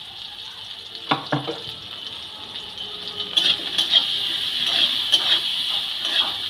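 Bitter gourd and potato pieces sizzling in oil in a metal wok, with a single knock about a second in. From about three seconds in, a metal spatula stirs and scrapes the pan, and the sizzle grows louder as the spice paste is fried in.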